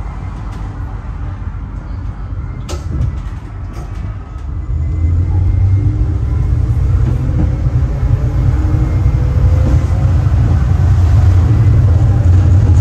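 Bucharest tram running on its rails with a steady low rumble, heard from inside at the rear; a single sharp click comes a few seconds in. About halfway through it grows louder as the tram picks up speed, with a faint rising whine over the rumble.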